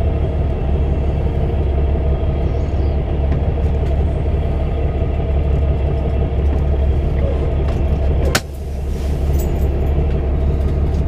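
Steady low diesel engine rumble, heard from inside a semi truck's cab. A sharp click comes about eight seconds in, and the rumble dips briefly afterwards.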